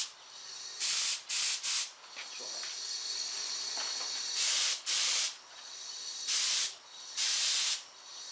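Aerosol spray paint can spraying in about seven short hissing bursts with gaps between. The nozzle is partly clogged, so the can sprays only intermittently.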